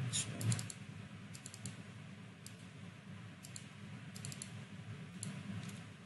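Computer keyboard keys clicking in short, irregular clusters, over a low steady hum.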